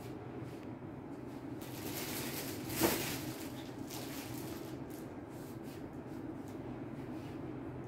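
Cloth rustling as the fabric is handled, loudest a little before three seconds in, with a few fainter rustles later, over a low steady hum.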